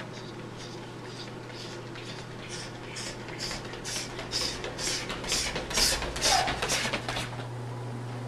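Running footsteps slapping a hard tiled floor, quick and regular at about three a second, growing louder as the runners approach and stopping about seven seconds in. A steady low hum runs underneath.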